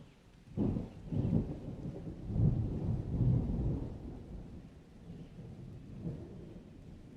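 Thunder: a sudden crack about half a second in rolls into a long, deep rumble that peaks midway and then fades, with a smaller roll near the end. Rain hisses steadily underneath.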